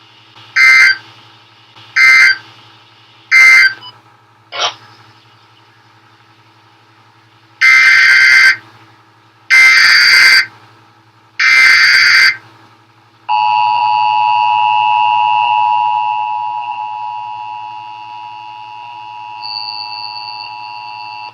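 Emergency Alert System tones. Three short SAME data bursts, the end-of-message code, come about 1.4 s apart, then a click. Three longer warbling SAME header bursts follow about 2 s apart, and from about 13 s in the steady two-tone EAS attention signal begins, growing quieter partway through.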